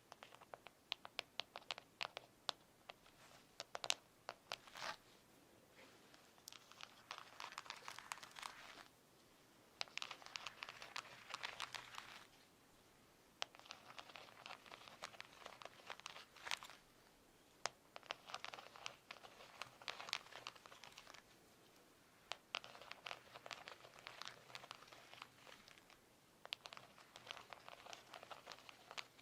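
Fingernails tapping on an object: scattered single taps at first, then quick runs of rapid tapping lasting two or three seconds each, broken by short pauses.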